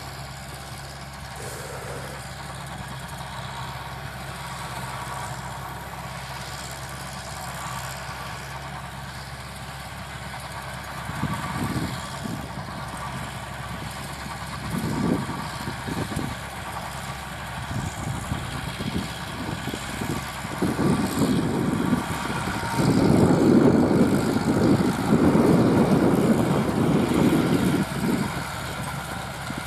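Landini tractor's Perkins 4.1-litre four-cylinder diesel engine running steadily while it tills dry ground. Uneven louder surges come and go in the second half, heaviest near the end.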